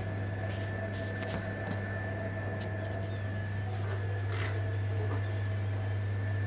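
Steady hum of a stationary ÖBB Nightjet couchette carriage's onboard ventilation and electrics: a low hum with a thin, steady high whine above it, and a few faint clicks.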